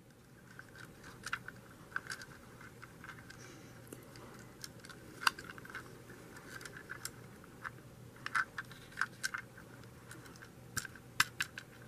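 Faint, irregular clicks and taps of a small plastic toy train model being handled and turned over in the hands.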